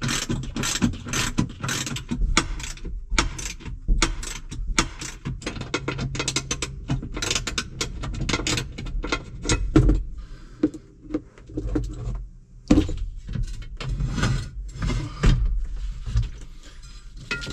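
Hand ratchet wrench clicking in quick runs as the bolts holding a tractor seat base are backed out, followed by sparser metal clicks and knocks as the base is worked loose and lifted.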